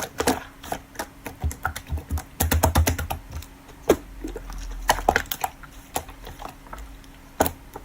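Slime being squeezed and poked, making an irregular run of small sticky clicks and pops, with a few soft low squelches early on.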